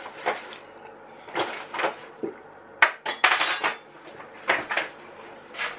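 Kitchen dishes and cutlery clattering and clinking: a string of separate sharp knocks and chinks, some ringing briefly like metal or glass struck together.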